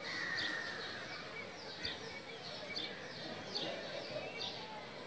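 Outdoor ambience with repeated short, high chirps, each falling in pitch, about two or three a second. A longer falling whistle comes in the first second.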